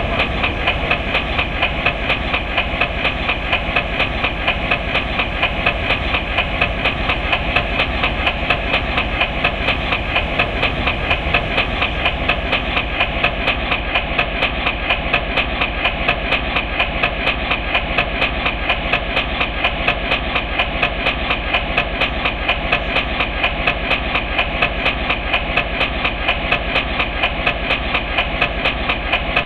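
Railroad level-crossing warning bell ringing over and over in a rapid, even rhythm. A faint hiss above it drops away about halfway through.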